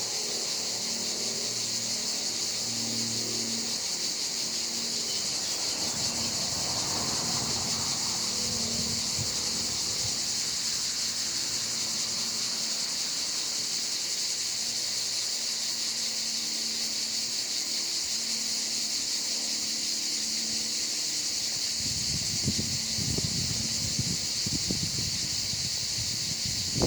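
Steady, high-pitched insect chorus, with brief rustling near the end.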